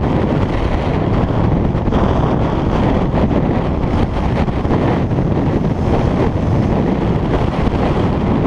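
Steady, loud wind rushing over the microphone of a skier's body-worn action camera during a fast downhill run, mixed with the skis sliding over groomed snow.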